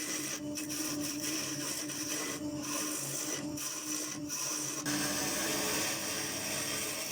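Wood lathe spinning a maple blank with a steady motor hum while a turning tool scrapes against the wood, the cut breaking off briefly several times; about five seconds in the scraping becomes smoother and steadier.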